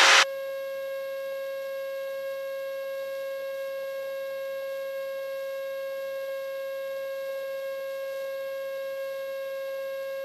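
Steady electrical whine on a light aircraft's headset intercom audio: one fixed pitch with a row of overtones, unchanging.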